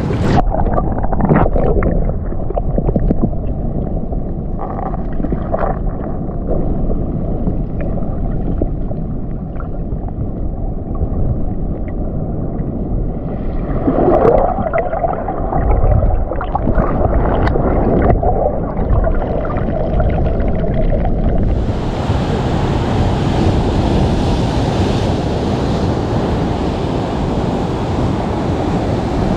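Muffled sloshing and swirling of sea water heard underwater among reef rocks, with a few dull knocks. About three quarters of the way in, it changes to the open rush of waves breaking and washing over the rocks.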